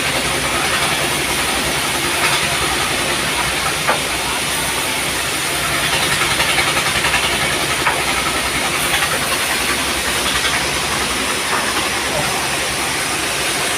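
Sawmill machinery running, a steady loud hiss over a low engine hum, with a few faint knocks.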